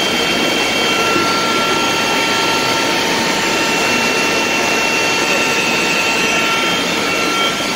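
Pieralisi olive oil mill machinery running: a loud, steady mechanical din with a constant high whine over it.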